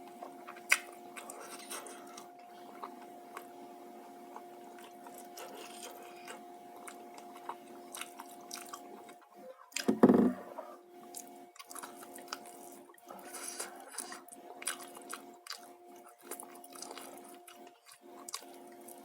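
A person chewing and eating close to the microphone: irregular small wet mouth clicks and smacks, with one louder muffled thump about halfway. A faint steady hum lies under it throughout.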